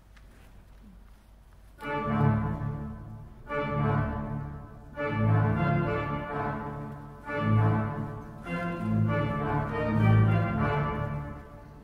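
Church pipe organ starting up about two seconds in and playing sustained chords in swelling phrases, after a brief hush.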